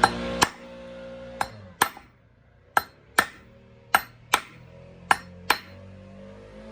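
Hammer striking a punch to drive and set the rivet pins of a winch rope guard, in five pairs of hard, sharp metallic whacks, each with a brief ring. Few, hard blows per pin keep the rivet heads from ballooning out.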